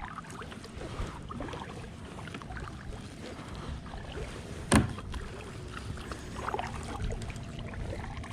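A fishing reel being cranked to retrieve a lure, with many small faint ticks over a low rumble, and one sharp knock about five seconds in.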